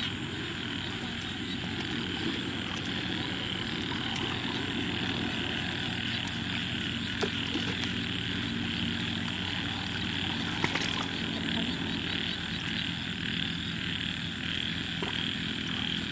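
Steady rural outdoor background: a high, evenly pulsing chorus of calling frogs or insects over a low, even drone, with a couple of faint knocks about seven and eleven seconds in.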